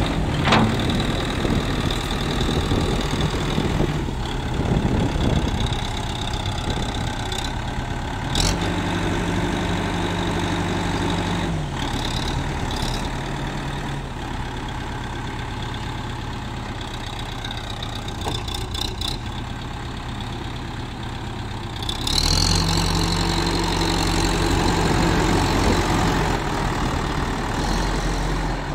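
L&T-Case backhoe loader's Kirloskar diesel engine idling. The revs are raised for about three seconds some eight seconds in, then raised again and held from about 22 seconds on. A few short clicks stand out.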